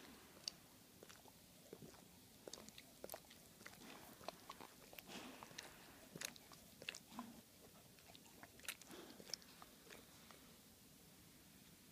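Dog licking another dog's face and mouth: faint, irregular wet smacks and tongue clicks.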